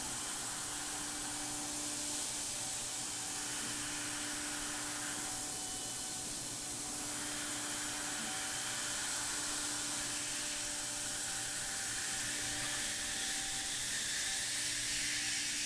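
Thermwood 5-axis CNC router running its spindle with a 1/8-inch cutter, routing holes in a polyethylene part: a steady high hiss with faint steady tones beneath it.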